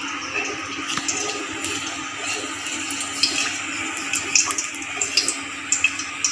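Cooking oil heating in an aluminium wok with a steady hiss and faint crackle, while a wooden spatula spreads it, making light scrapes and clicks against the pan.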